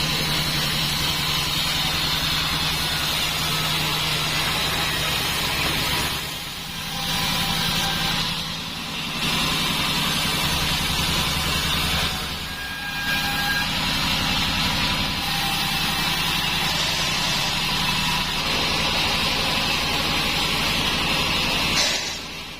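Band sawmill running, a steady machine hum under the hiss of the blade cutting through timber. The sound eases off briefly three times, a few seconds apart.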